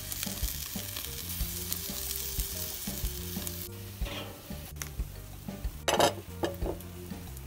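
Coil of boerewors sausage sizzling on a kettle grill over glowing charcoal, a dense steady hiss that stops suddenly about halfway through.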